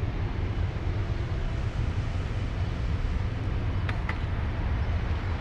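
Airbus A330-300 taxiing with its Rolls-Royce Trent 700 jet engines at low thrust: a steady low rumble with a faint jet hiss. Two brief high clicks about four seconds in.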